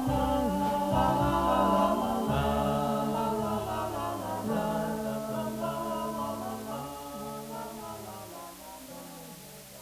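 The closing bars of a 1960s pop ballad fading out, with held vocal harmonies over bass.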